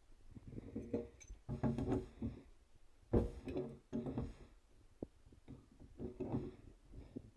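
Irregular clinks, scrapes and knocks of metal plumbing fittings being handled and screwed together: a ball valve being threaded onto a nipple.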